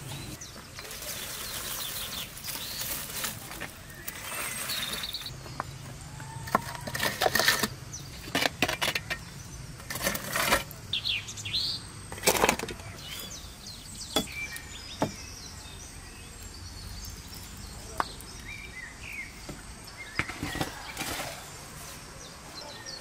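Short knocks and scrapes of metal baking trays being handled at a clay oven, with birds chirping now and then in the background.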